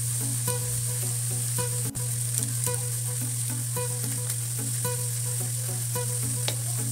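Kangkong (water spinach) stems sizzling steadily in hot oil in an aluminium wok as they stir-fry.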